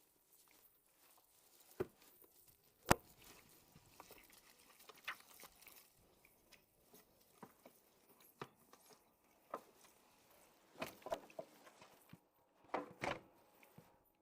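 Scattered light clicks and taps, as of utensils and food being handled during kitchen prep. The sharpest knock comes about three seconds in, and there are short clusters of taps near the end.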